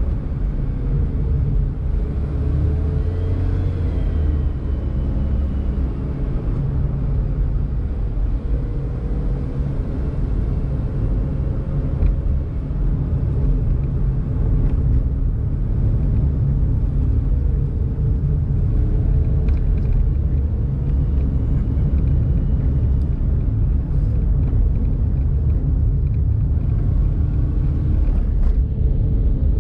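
Daihatsu Mira Tocot's small three-cylinder engine and tyres running steadily while driving, a continuous low rumble with a faint engine note that rises and falls a little, and a few faint ticks.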